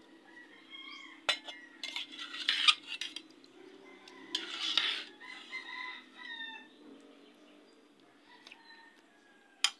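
A rooster crowing twice, each crow ending in a falling tail, with a few sharp clicks of utensils against the bowl, one about a second in and one at the very end.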